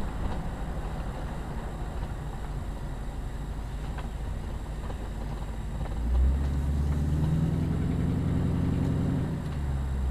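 Car engine and tyre noise heard from inside the moving car's cabin. About six seconds in, a louder low hum comes up and holds for a few seconds before easing off near the end.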